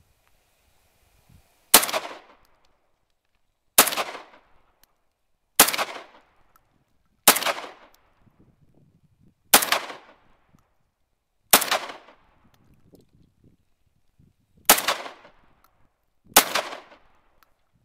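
Molot Vepr-12 semi-automatic 12-gauge shotgun firing eight shots, about one every two seconds, each followed by a short echo. The gun cycles each round with no stoppage.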